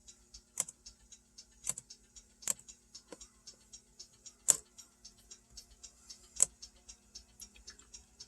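Fast, even ticking, about four ticks a second, over a steady low hum. Half a dozen louder sharp clicks fall at uneven intervals, the loudest two about four and a half and six and a half seconds in.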